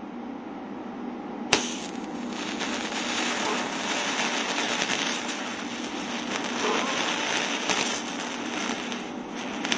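TIG welding arc on a 17-series flex-head torch fitted with a gas saver gas lens. The arc strikes with a sharp crack about 1.5 s in, then runs as a steady crackling hiss. The argon is turned down to about 12 CFH, and the welder says there "seems like a lot of contamination" in the bead.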